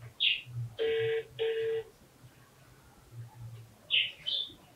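Telephone ringing in a double-ring pattern: two short steady beeps with a brief gap between them, about a second in. Short high chirps sound near the start and again near the end.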